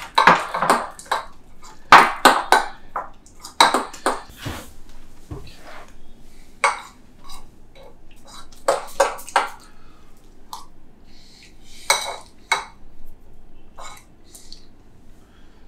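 Dishes and cutlery clinking and knocking: a spoon and bowls handled during food preparation, a string of sharp clicks and knocks, loudest in the first few seconds, with one ringing clink about twelve seconds in.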